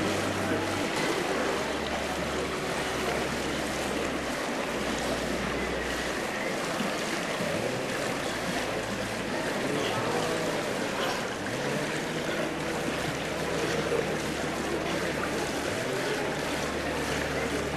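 Echoing indoor swimming-pool noise: water sloshing and splashing with a wash of distant voices. Underneath run low held notes of faint background music that change every few seconds.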